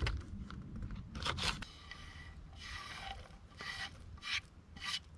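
Short, irregular scraping and crunching sounds of hands-on cooking work at the pot, about six in all, some with a faint ringing edge.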